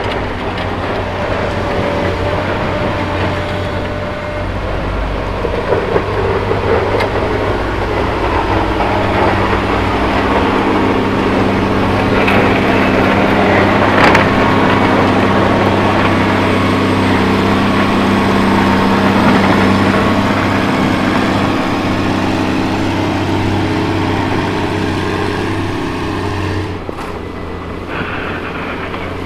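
Caterpillar 140M AWD motor grader's diesel engine running steadily as it plows slush, with a hiss from the blade and tyres on the wet road. It grows louder as the grader comes close and eases off near the end.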